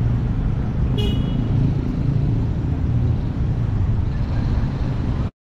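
Motorcycle engine rumbling steadily at low speed under wind noise on the microphone. A short, high-pitched horn toot sounds about a second in. All sound cuts off suddenly near the end.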